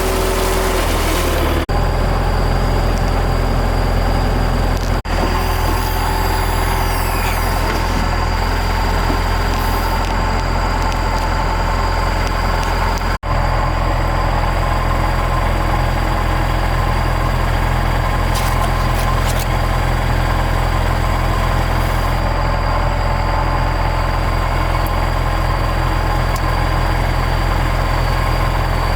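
Large excavator's diesel engine running steadily, a deep continuous drone that drops out for an instant a few times.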